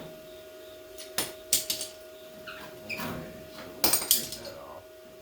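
Metal tools and parts clanking and knocking: a handful of sharp metallic clacks, loudest near the end, over a steady faint hum.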